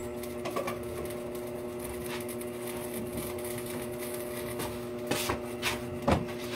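A steady mechanical hum, like a small motor running, with a few light knocks and taps about five to six seconds in.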